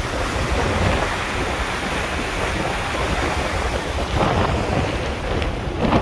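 Wind buffeting the microphone over the steady rush of open sea and a ship's churning wake.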